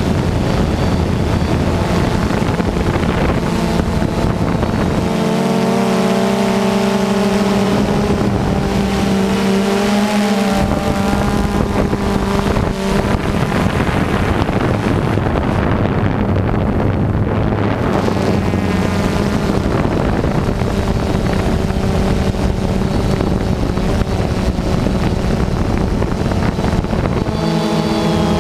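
DJI quadcopter drone's motors and propellers buzzing steadily, picked up by the drone's own onboard microphone, the pitch of the buzz shifting as the drone manoeuvres, about five seconds in, about ten seconds in and near the end. Wind rushes over the microphone throughout.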